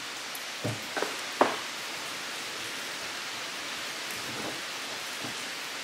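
A nylon zip tie being cinched around a rubber shock boot: a few sharp clicks about a second in, the last the loudest. Later come a couple of fainter clicks as the excess tail is snipped off with cutters. A steady background hiss runs underneath.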